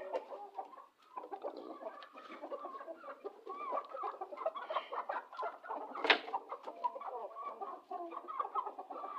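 Aseel chickens clucking steadily, several birds calling over one another, with one sharp knock about six seconds in.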